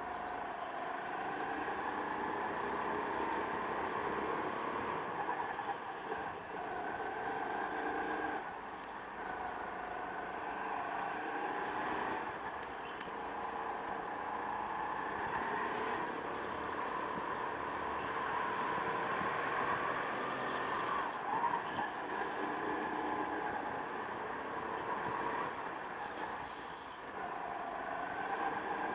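Go-kart engine heard from an onboard camera, its pitch rising and falling again and again as it revs up and drops back, with short dips around six, nine, twenty-one and twenty-seven seconds.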